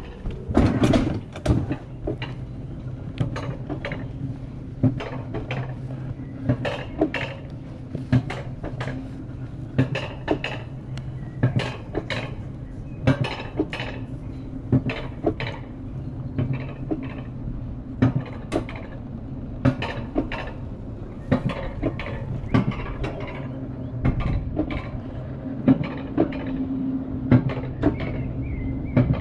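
Alpine coaster sled running up its steel-rail lift section: a steady low hum from the lift under frequent irregular metallic clicks and clanks, about one or two a second.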